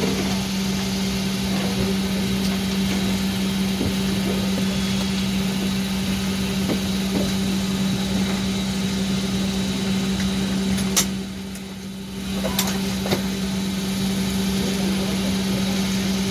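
Steady hum of an airliner cabin's air-conditioning and ventilation, with a strong low drone. It drops briefly about eleven seconds in, and there are a few faint clicks.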